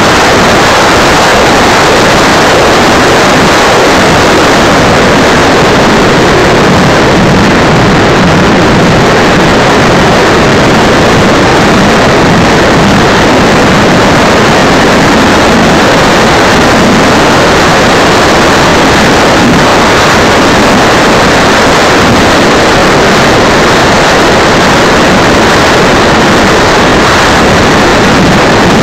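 Loud, unchanging rush of airflow and twin 90 mm electric ducted fans in flight, heard from an onboard camera at the nose of a large radio-controlled model jet.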